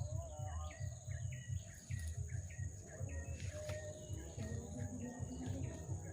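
Insects droning on one steady high note, with a bird repeating short falling calls over a low, uneven rumble.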